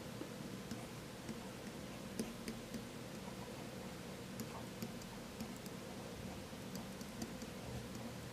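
Faint, irregular clicks and taps of a stylus tip against a pen-tablet surface while handwriting, over a steady low electrical hum.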